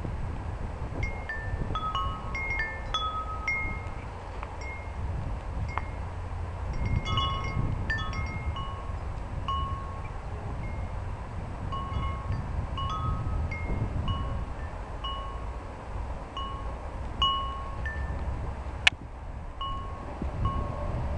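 Tubular wind chime of long metal tubes struck irregularly by the breeze, ringing out scattered notes at several pitches, with wind rumbling on the microphone. One sharp click near the end.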